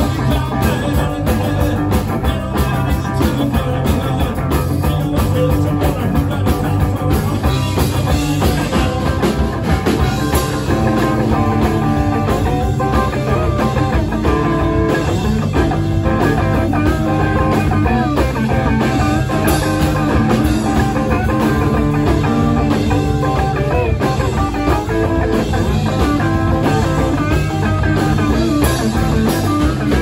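A rock band playing: electric guitar over a drum kit, loud and steady with a regular drum beat, mostly without singing.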